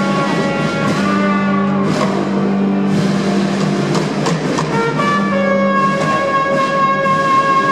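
Military wind orchestra playing slow, held brass chords, with a solo trumpet over them; the chord changes about five seconds in.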